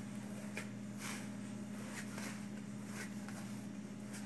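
Hands kneading churro dough on a granite countertop: soft, irregular pats and presses, about two a second, over a steady low hum.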